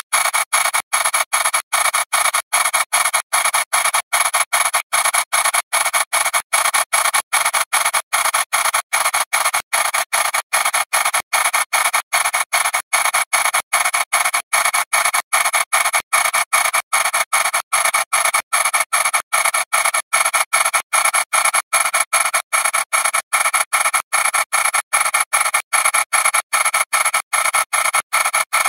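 Heavily degraded digital audio from thousands of repeated re-exports. A distorted, noisy fragment cuts in and out a couple of times a second, with no bass and a thin high whistle over it.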